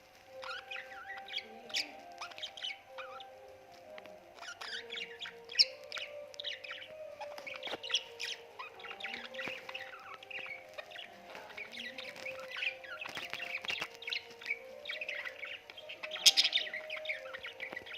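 Budgerigars twittering and chattering, a dense run of quick, high chirps that keeps going throughout.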